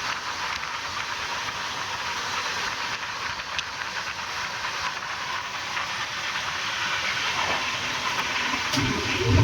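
Moving train running along the track: a steady rushing hiss of wheels and air. A louder low rumble sets in near the end.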